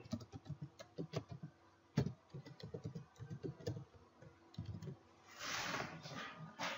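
Typing on a computer keyboard: a run of quick key clicks, with one louder key strike about two seconds in and a short pause after about four seconds. A brief hiss comes in about five seconds in.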